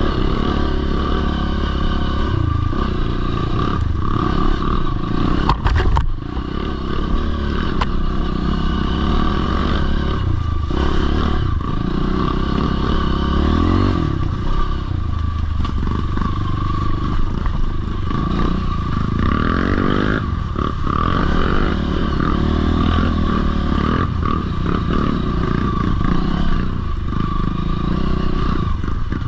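Dirt bike engine revving up and falling back again and again as it is ridden around a motocross track, with the bike rattling over the bumps and a sharp clunk about six seconds in.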